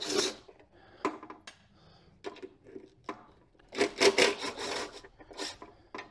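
Handling noise on a steel window-assembly case: scraping, rubbing and light clicks of a cordless driver and small bolts being worked. A few clicks come about a second in, and a denser run of rasping scrapes around four seconds in.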